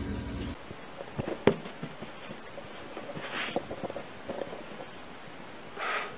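A kitten in an arched-back, puffed-up defensive stance hissing in two short bursts. A sharp knock sounds about a second and a half in, with a few soft taps around it.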